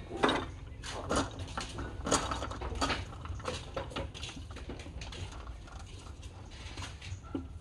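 Light metal clinks and knocks from a wood lathe's tightening handle and fittings as a log is clamped on the machine; the clicks come thick in the first few seconds and thin out later.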